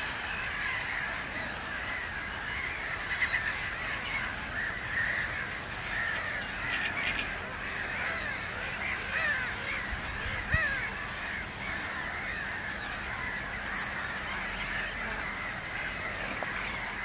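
Continuous chorus of many birds calling at once: a dense mass of short overlapping calls, with a few louder ones standing out about three seconds in. A brief low thud comes about ten seconds in.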